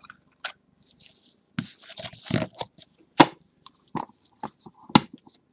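Gloved hands handling a stack of trading cards and a small cardboard box: rustling and sliding, with sharp taps about three seconds in and again near the end as the cards are set down.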